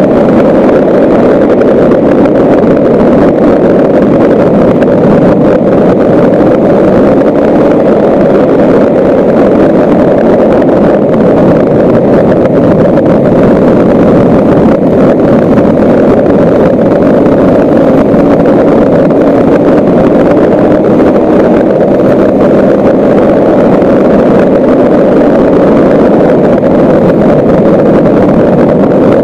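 Loud, steady ride noise of a vehicle travelling along a gravel road: tyres on gravel mixed with wind on the microphone, unbroken throughout.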